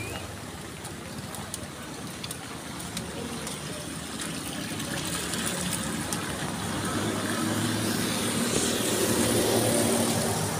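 A motor vehicle's engine running close by, over a steady outdoor hiss; it grows louder in the second half.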